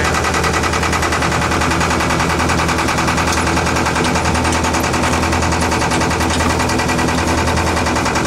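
Sailboat's engine running steadily under way, a fast, even pulsing over a strong low hum.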